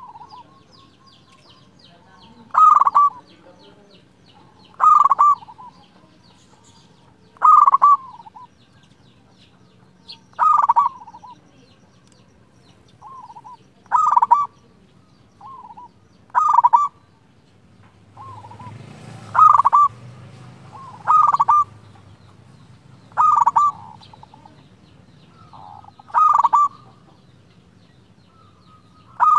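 Zebra dove (perkutut) cooing: a short, clear call phrase repeated about every two to three seconds, with a few softer single notes between the phrases. A low rumble rises under the calls for a few seconds past the middle.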